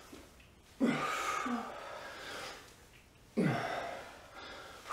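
Heavy effort exhalations with a short voiced grunt, twice, about two and a half seconds apart, each pitched note dropping and trailing off into breath. This is a person breathing hard through repetitions of a sumo squat.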